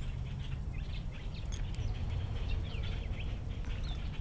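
Small birds chirping and calling in quick, short notes, over a steady low rumble.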